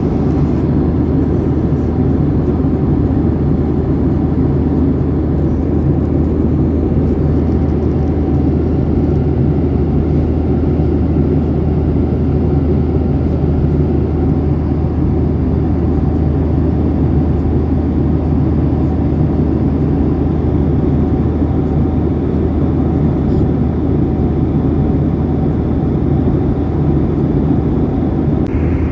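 Airliner cabin noise in flight: the steady, even hum and rush of a Boeing 737-800's jet engines and airflow heard from inside the cabin, with a strong low drone.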